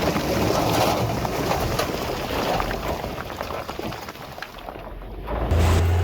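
Heavy earthmoving machinery at work: a noisy rumble with scattered clatter that fades briefly about four seconds in, then a diesel engine's steady low drone comes in loud near the end.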